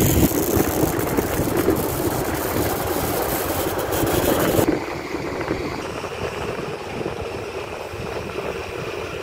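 Diesel engine of a Sumitomo SH210 excavator running steadily as it digs and loads a dump truck, with the trucks' engines running close by. A high hiss over the top drops away about halfway through.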